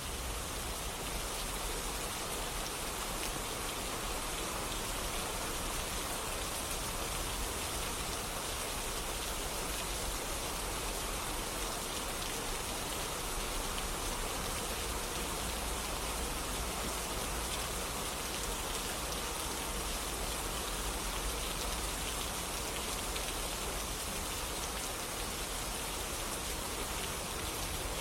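Steady, even rainfall, with dense raindrops pattering on surfaces.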